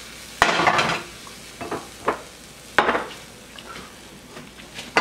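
Sautéed mushrooms scraped out of one frying pan onto an omelette in another with a utensil: scrapes and knocks of the utensil against the pans, with a sizzle as the mushrooms land in the hot pan. The two loudest bursts come about half a second in and near three seconds in.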